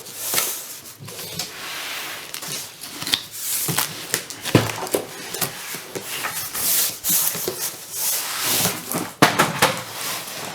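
Cardboard box of a metal tool chest being flipped over and unpacked: continuous scraping and rustling of cardboard, with scattered clicks and a few heavier knocks.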